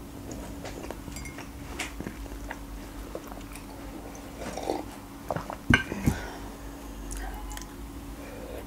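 Quiet eating sounds: a sip from a mug, a few sharp knocks about five and a half to six seconds in as the mug is set down, then a marshmallow bitten and chewed. Under them are faint scattered rustles and ticks from a pet rummaging in a clothes bag, and a steady low hum.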